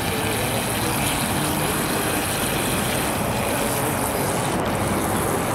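Small electric RC speedboat running fast across open water, a steady high whir and hiss of motor and spray, with wind on the microphone.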